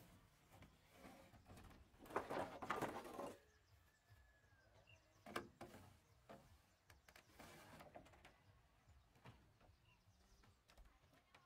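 Mostly quiet. About two seconds in, a long wooden pole scrapes against the timber frame for about a second, and a sharp knock of wood comes a couple of seconds later. A bird calls faintly.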